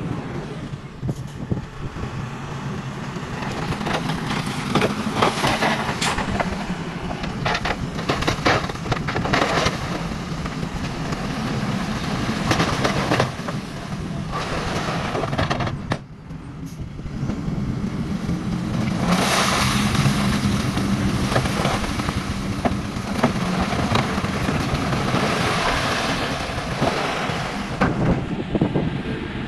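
Miniature toy trucks and bulldozer at work: a steady engine-like hum with many crackles and clicks over it. The sound drops out briefly about sixteen seconds in, then resumes.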